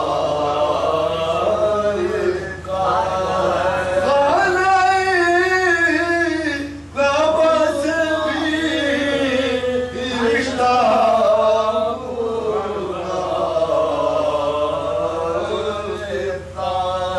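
A man's voice singing a line of an Urdu salaam in long, drawn-out notes that waver and glide in pitch, with a few short breaks for breath.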